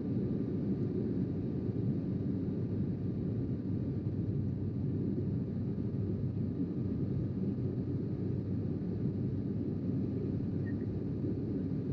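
Steady in-flight cabin noise of a Sukhoi Superjet 100 airliner: a deep, even rumble of airflow and its SaM146 turbofan engines, with a faint steady whine above it.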